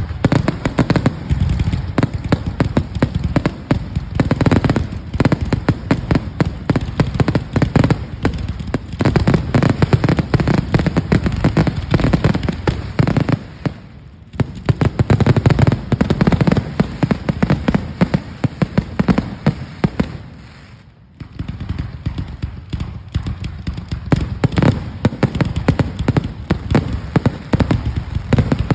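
Fireworks going off in rapid, dense volleys of bangs and crackles, with two brief lulls, about 14 and 21 seconds in.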